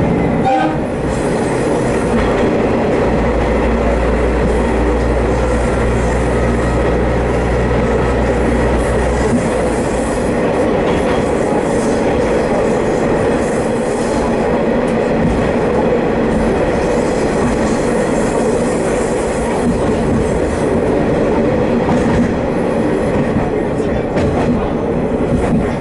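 Haimo 330 diesel railcar running along the line, its running noise heard from inside the railcar. A low steady drone joins in about three seconds in and drops away about nine seconds in.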